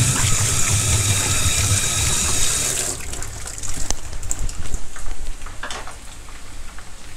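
Batter-coated water spinach leaves deep-frying in oil in a pan, crackling and sizzling. For the first three seconds a louder steady rushing noise covers it and then cuts off abruptly, leaving the crackle of the frying.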